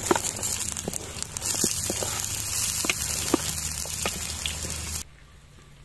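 Animal fat sizzling hot in a pan: a steady hiss with scattered crackles and pops that starts and cuts off abruptly.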